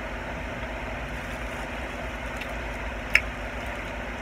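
Steady low background hum of a small room, with a thin constant tone, and a single faint click about three seconds in.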